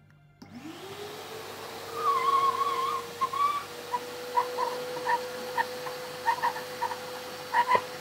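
Wet-and-dry construction vacuum cleaner switched on, its motor spinning up to a steady whine within about a second. From about two seconds in it slurps up water through the hose with repeated gurgling bursts.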